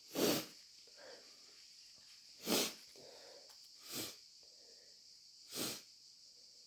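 A person with a runny nose making four short, noisy nasal sounds a second or two apart, with softer breathing between them.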